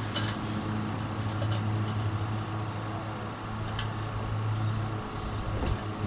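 A steady low hum with a few light, sharp clicks scattered through it.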